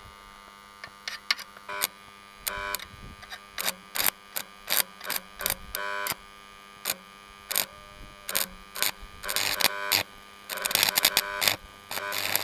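Old AC transformer stick welder (buzz box) humming while the electrode is tapped and scratched on a steel plate to strike an arc: a string of short crackling sputters, then about nine or ten seconds in the arc catches and crackles more steadily. The arc is weak and hard to hold, which the owner puts down to too few amps.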